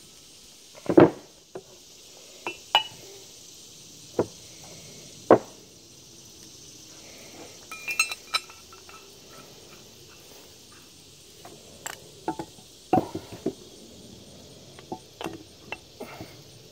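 Steel ball joint press C-frame and adapter cups being handled and fitted over a ball joint on a Dana 44 steering knuckle. They clink and knock against the knuckle, each other and the bench in about a dozen irregular sharp knocks with quiet gaps between them.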